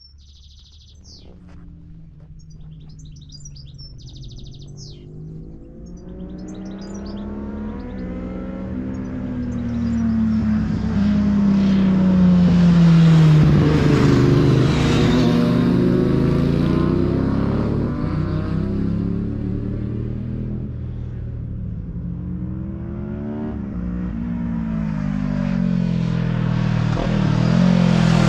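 Birds chirping, then several motorcycles approaching with engines revving up and down through the gears. They grow steadily louder, pass by with a falling pitch about halfway through, and more bikes follow, rising again near the end.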